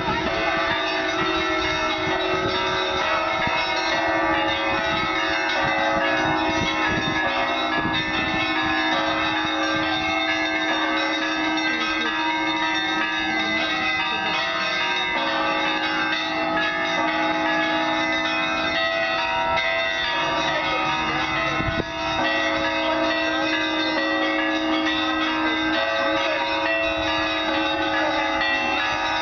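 Russian Orthodox cathedral bells ringing in a continuous peal, many bells of different pitches sounding together over a steady low bell tone.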